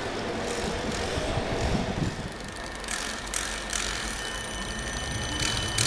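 Siemens Avanto tram-train pulling into the station: a steady rumble, then from about halfway a run of sharp clicks and a thin, steady high whine.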